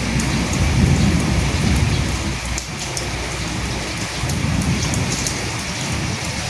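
Steady rain falling, with many small drop ticks over an even hiss. A low rumble of thunder swells in the first two seconds or so and again about four seconds in.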